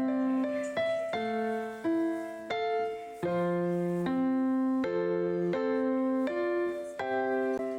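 Background music: a keyboard, piano-like in tone, playing a slow, gentle melody of held notes and chords that change about every half second to a second.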